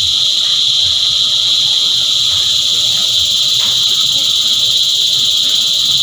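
A chorus of cicadas buzzing, a loud, steady, high-pitched drone that holds without a break.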